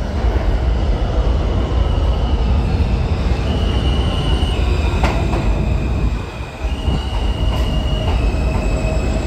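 R160 subway train pulling into the station and slowing, with a deep steady rumble from the cars and wheels. High whining tones jump in pitch several times, two sharp clicks come about halfway through, and a steadier tone sets in near the end as the train comes to a stop.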